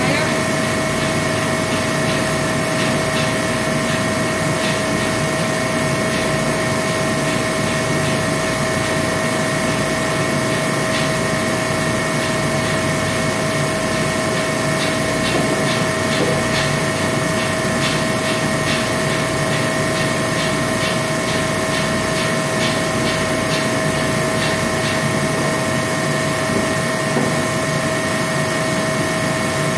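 Machinery running steadily: a constant noisy hum with a steady high whine in it, and a faint rapid ticking through most of the middle.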